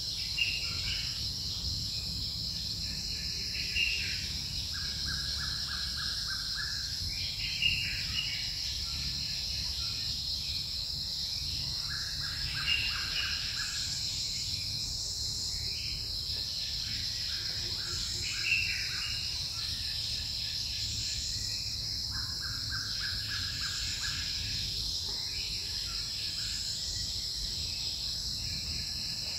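Forest ambience: a steady high-pitched insect drone, with a pulsing call repeated every four or five seconds.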